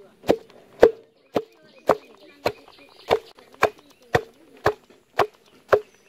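Steady rhythmic chopping, about two strokes a second, each stroke a sharp knock with a short metallic ring.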